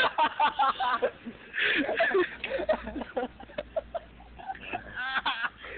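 Indistinct voices of people calling out, with scattered short knocks and clicks in between; a louder call comes about five seconds in.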